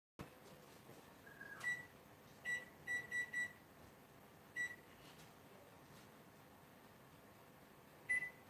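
Electronic kitchen timer keypad beeping as its buttons are pressed to set the pie's baking timer. There are about seven short, high beeps at uneven spacing, with a quick run of four in the middle and the last near the end.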